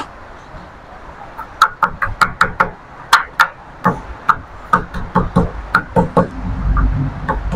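Wooden pestle pounding chilies in a small ceramic bowl: a steady run of sharp knocks, about three a second, starting about a second and a half in.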